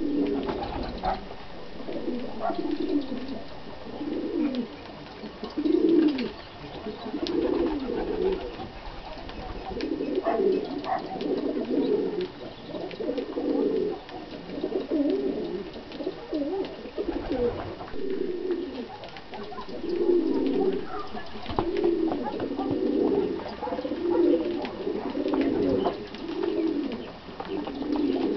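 Steady, repeated cooing of pigeons or doves, one low call about every second with short pauses in between. Faint small clicks from lovebirds cracking seed lie over it.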